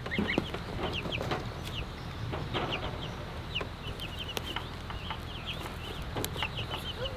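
Young chicks peeping, many short high chirps in quick succession, with scattered knocks and scuffs as a wooden chick cart is pushed over wood-chip mulch.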